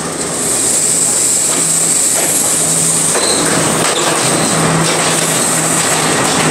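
Sri Lanka Railways Class S12 diesel multiple unit pulling into the platform and running close past, its engine drone and wheel noise growing louder about half a second in and then holding steady.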